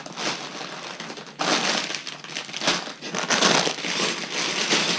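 Sealed plastic bags full of Lego pieces crinkling, with the bricks inside rattling, as the bags are handled in uneven bursts that grow louder about a second and a half in.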